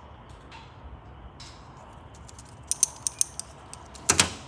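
A few sharp clicks, then a louder clunk near the end: small hard parts being handled and knocked together, over a low steady background noise.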